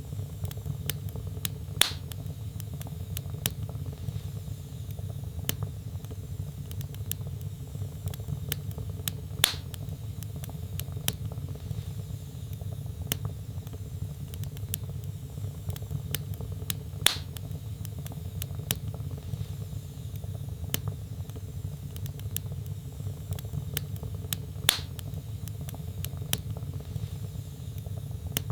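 Log fire in a fireplace crackling: frequent small crackles over a steady low rumble, with four louder pops at even intervals of about seven and a half seconds.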